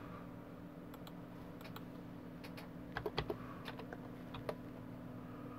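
Computer keyboard typing: faint, scattered keystrokes with a quick run of taps about three seconds in.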